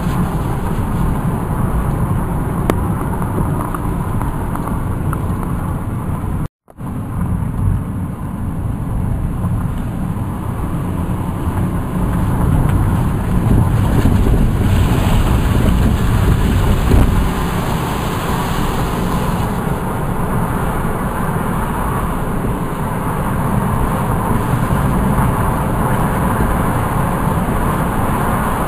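Steady road noise of a car driving, heard from inside the cabin: a low rumble of engine and tyres with some hiss. About six and a half seconds in, the sound cuts out completely for a moment, then comes back.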